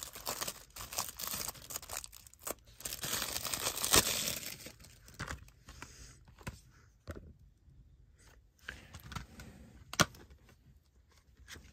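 Plastic shrink wrap being torn and peeled off a Blu-ray case, crackling and crinkling, busiest over the first five seconds and loudest around four seconds in. After that come a few scattered clicks and one sharp click about ten seconds in.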